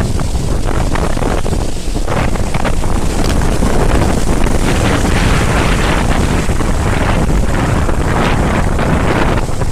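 Storm wind buffeting the camera's microphone: a loud, low rush that swells and eases with the gusts.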